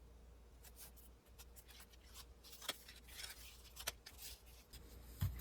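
Faint handling of paper and craft materials: scattered light clicks, taps and rustles.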